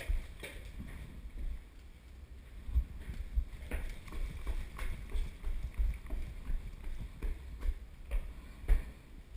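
Irregular low thumps and knocks about every half second to a second, with a few sharp clicks, as a person moves about with a body-worn camera.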